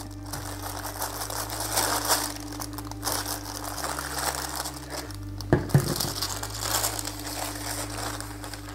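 Wax paper crinkling and rustling under a clothes iron slid back and forth over it on a nylon rain jacket, heat-bonding loose seam tape back down. There are a couple of short knocks a little past halfway, and near the end the paper is peeled off and lifted.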